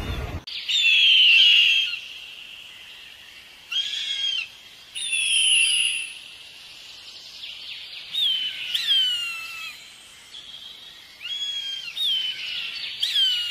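Eagle calling: a series of high, whistled cries, many sliding down in pitch, in short groups with pauses between; the loudest comes about a second in.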